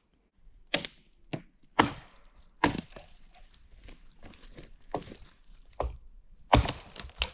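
A series of sharp woody cracks and snaps, about eight at irregular intervals, the loudest near the end.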